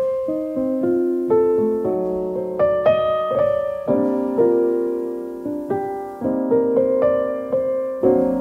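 Background piano music: a gentle melody of struck notes, often several at once, each ringing and fading.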